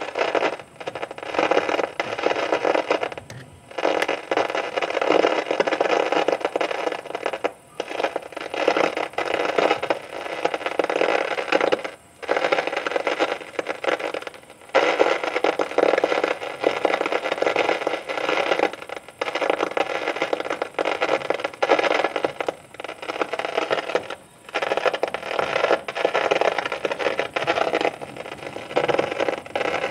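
Thunderstorm noise: a loud, rough hiss with a rattling edge that cuts out briefly every few seconds.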